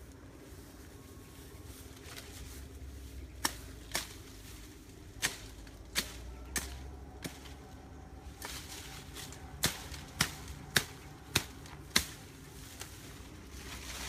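Sharp snapping cracks of woody stems being broken off by hand in scrub, about a dozen in two uneven runs.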